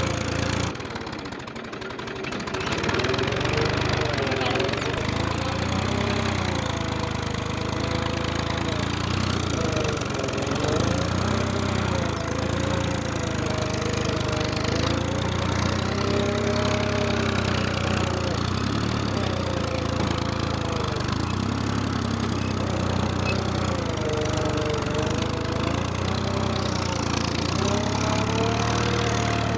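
Tractor engine running steadily under load while ploughing, with a melodic tune heard over it. The level drops briefly about a second in.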